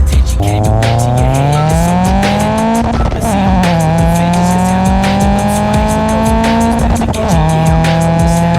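Honda Integra four-cylinder engine accelerating through the gears, heard through a 4-1 header and a 2.5-inch straight-through exhaust with a quiet catback. The engine note rises, drops at an upshift about three seconds in, climbs again and drops at another shift about seven seconds in.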